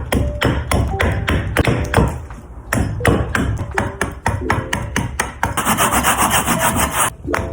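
Hand tool working green wood: a run of short scraping strokes, then a longer, continuous shaving stroke near the end.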